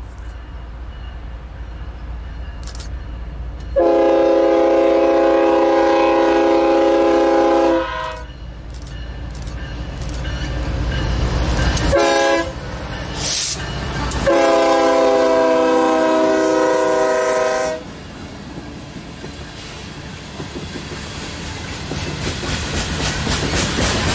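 Air horn of a BNSF freight locomotive leading a coal train, sounding a chord of several notes: a long blast, a brief short blast, then another long blast. Then the locomotives and coal hopper cars pass close by, with a rumble and rolling wheel noise that grow louder near the end.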